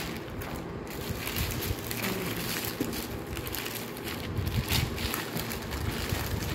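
Plastic poly courier mailer crinkling and rustling as hands pull and tear it open, with irregular crackles.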